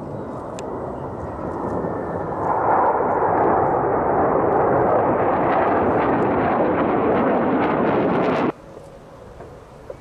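Jet noise from Black Eagles T-50B aerobatic jets flying over, a steady roar that grows louder about two and a half seconds in and then cuts off abruptly near the end.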